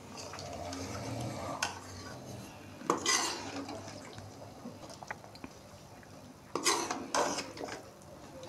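Steel ladle stirring chicken curry in a metal pot, scraping and clinking against the pot's sides and bottom. There are a few short clatters, the loudest about three seconds in and another pair near the end.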